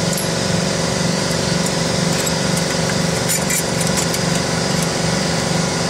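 A motor running steadily, its low hum pulsing about twice a second, with a few faint light clicks midway.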